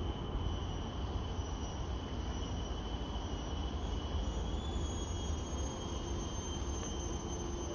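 Steady outdoor ambience: a constant low rumble with thin, steady high-pitched tones above it.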